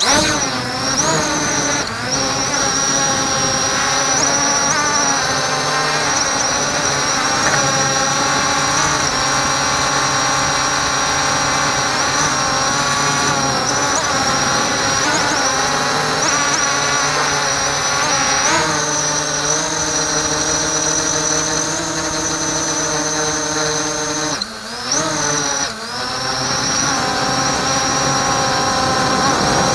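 A multirotor drone's electric motors and propellers whining, picked up close by the drone's own camera, with the pitch rising as the motors spin up at the start and shifting with throttle in flight. About 25 seconds in the motors drop off sharply twice and pick up again.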